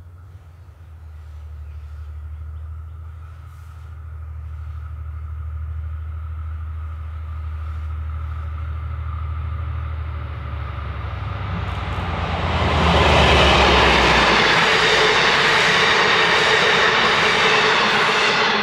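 V/Line N class diesel-electric locomotive hauling passenger carriages, its engine a low drone that grows louder as it approaches. About twelve seconds in the locomotive passes close by and the engine drone gives way to a loud rush of carriage wheels on the rails that lasts to the end.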